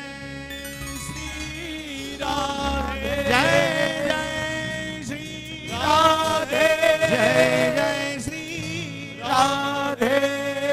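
Live Hindu devotional bhajan: male voices singing long, wavering sung phrases over instrumental accompaniment, growing louder toward the climax of the song.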